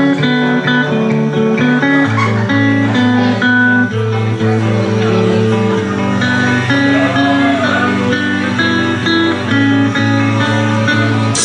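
Instrumental intro of a karaoke backing track: guitar chords held and changing every second or two, with no vocals.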